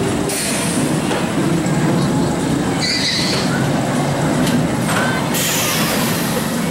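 Steel roller coaster car rumbling steadily along its track overhead, with a brief higher-pitched sound about three seconds in.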